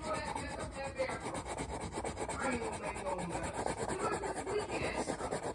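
Continuous close rubbing and scraping on a foam poster board.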